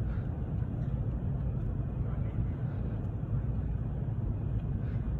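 Steady low rumble of background noise with no clear events, plus a few faint ticks.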